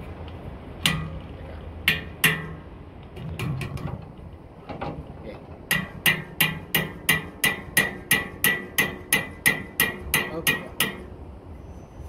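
Claw hammer striking the metal blade of an air conditioner condenser fan to fix it, each blow ringing. A few spaced blows come first, then a quick run of well over a dozen strikes, about three a second, which stops near the end.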